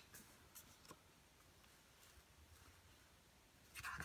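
Near silence, broken by a few faint paper ticks in the first second and a louder rustle of paper being handled and pressed down just before the end.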